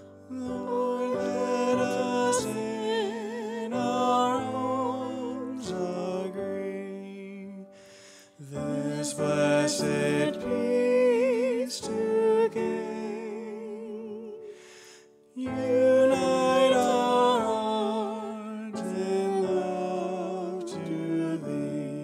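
A woman singing with a wide vibrato to grand piano accompaniment, in three long phrases separated by brief pauses.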